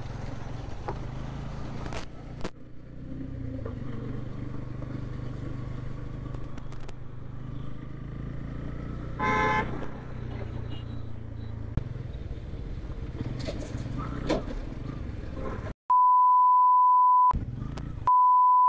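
Bajaj Pulsar N160 motorcycle running under way, with steady engine and road noise. A horn honks once, briefly, about nine seconds in. Near the end a censor bleep, a steady high beep, twice blanks out all other sound: the first lasts about a second and a half, the second runs on past the end.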